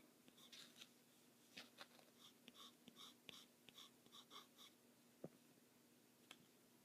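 Faint scratching of a pencil on paper in a quick run of short shading strokes, followed by a couple of light clicks near the end.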